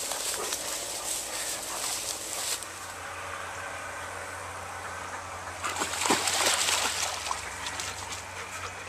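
Brushing and swishing through tall grass. After a cut, ducks swim on a pond, with a burst of water splashing about six seconds in and a steady low hum underneath.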